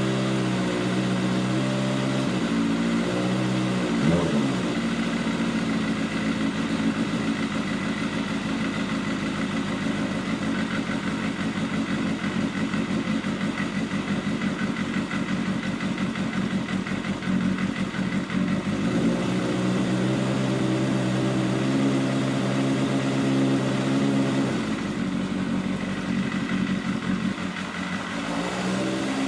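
Kawasaki Balius II's 250 cc inline-four engine running in neutral: idling steadily, with the revs raised and let fall a few times. It is being run to check it after an engine-oil change.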